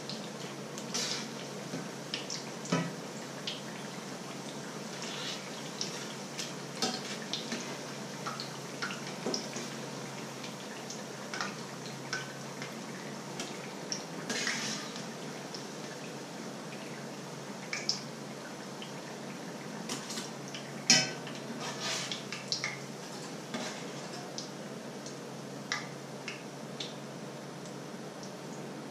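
A knife and a slotted spoon clinking and scraping against a frying pan and a metal steamer basket as fritters are turned and lifted out, over a steady sizzle of frying oil. Scattered sharp clinks, the loudest about three-quarters of the way in.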